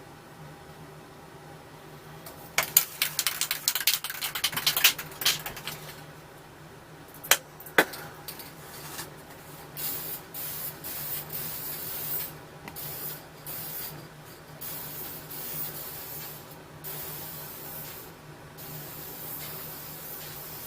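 Aerosol spray can of Duplicolor clear coat: the mixing ball rattles as the can is shaken for a few seconds, a couple of sharp clicks follow, then repeated hissing bursts of spray from about ten seconds in.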